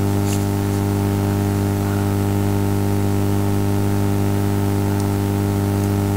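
Steady electrical mains hum with hiss from the recording chain, as loud as the voice around it. A few faint clicks sit on top.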